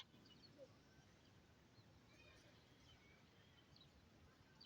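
Near silence: faint background hiss with a few very faint short chirps, like distant birds.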